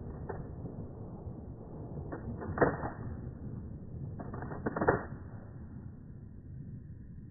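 Two 12-gauge shotgun shots a little over two seconds apart, the first about two and a half seconds in, each preceded by a few short clicks of the gun's action.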